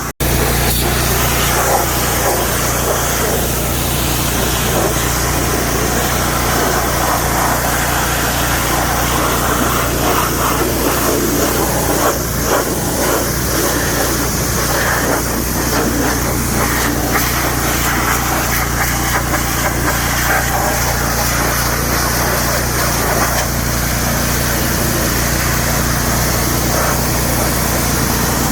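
A small engine running steadily throughout, with scattered short clanks and knocks over it.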